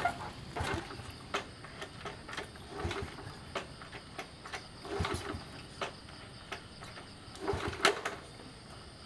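Footsteps and small knocks of someone moving through a room and handling things, with a louder clatter about eight seconds in.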